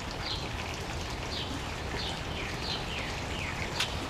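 A bird repeating short downward-sliding chirps, about two a second, over a steady hiss of running water, with one sharp click near the end.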